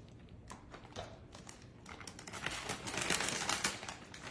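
Crinkling and rustling of a bag of soup toppings being handled: a few faint ticks at first, then dense crinkling from about halfway, loudest about three seconds in.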